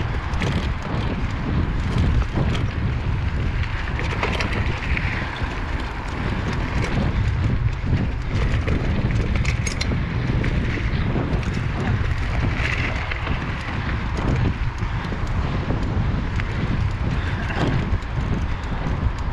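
Mountain bike riding fast over dirt single track: steady wind rush on the action camera's microphone over tyre noise on the dirt, with frequent small clicks and rattles from the bike over bumps.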